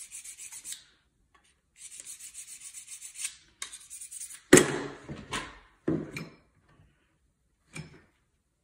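A steel wood chisel is drawn in quick back-and-forth strokes across a handheld sharpener, a rapid rasping scrape in three short runs, to put a sharp edge back on it. In the second half a hammer strikes the chisel four separate times, driving it into the wood; the first blow is the loudest.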